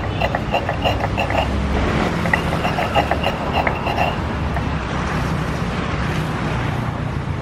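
A hand rubs and mashes chili paste against a terracotta cobek (grinding dish) in quick strokes, about six a second. The strokes come in two runs and stop about four seconds in. Steady street-traffic rumble runs underneath.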